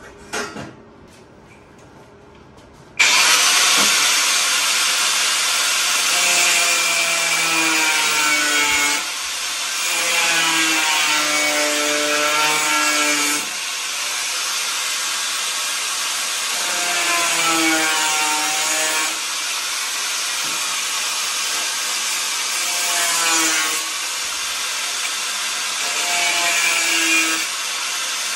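Angle grinder working steel bar. It starts suddenly about three seconds in and runs loud and continuous, its whine dropping and recovering as it is pressed into the metal and eased off several times. A short knock comes just before it starts.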